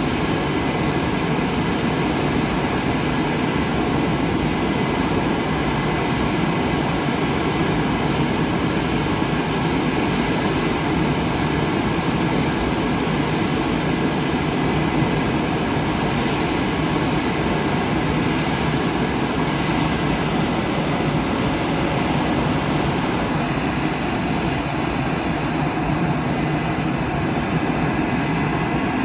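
Aircraft turbine engines running steadily on the ground: an even, loud rush of engine noise with steady whining tones over it.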